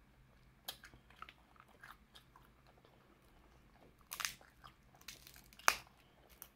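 Snow crab being cracked apart and eaten: scattered small crunches and clicks of shell, with the sharpest crack about five and a half seconds in.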